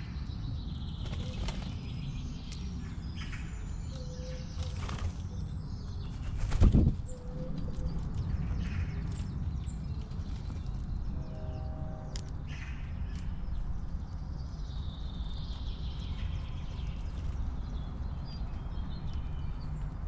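White-winged doves at a ground feeder, with one loud flutter of a dove's wings about six and a half seconds in, over a steady low background noise and a few faint bird chirps.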